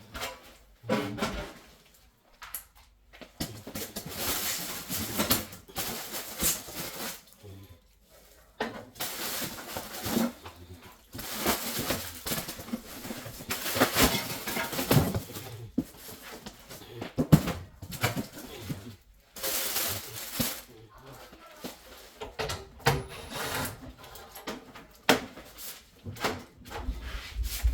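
Irregular clatter, clicks and clinks of metal parts and tools being handled, in uneven bursts with short pauses.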